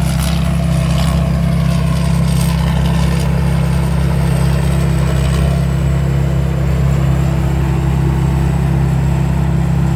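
Chao Chang WiFi 2024 rice combine harvester running steadily under harvesting load: an even, unbroken engine drone with a faint high whine over it.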